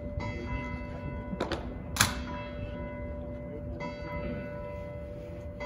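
Church bells ringing, their steady pealing tones sounding in long stretches. A single sharp knock cuts in about two seconds in.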